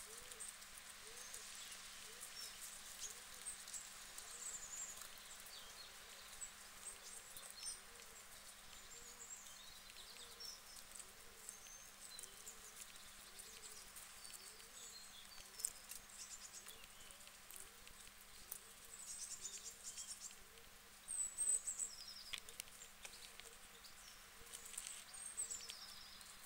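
Guinea pigs chewing lettuce: faint, quick crunching clicks, with a busier run of bites about three quarters of the way through.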